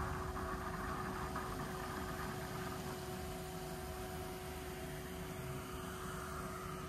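Steady rush of hot-spring water running into an open-air bath, with a constant low hum underneath.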